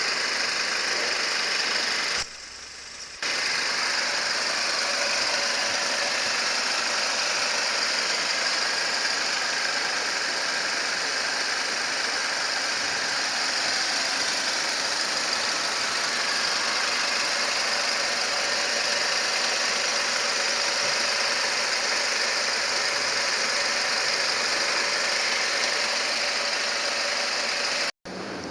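Mercedes-Benz W204 C180's M271 four-cylinder petrol engine running steadily, heard close up. The sound drops away for about a second, two seconds in.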